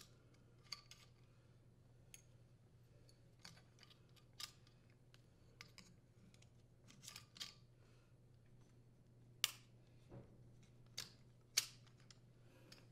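Scattered sharp clicks and light metal clinks as the steel support arms are fitted into the mounting bracket of a furnace blower motor and the motor is handled, the two loudest clicks near the end.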